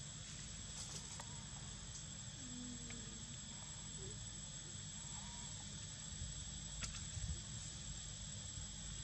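Insects droning steadily at a high pitch over a low background rumble, with a few faint clicks about seven seconds in.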